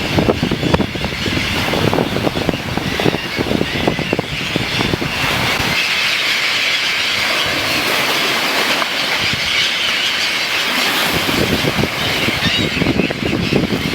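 Wind buffeting the microphone in gusts, easing for a few seconds in the middle to leave a steady rushing hiss.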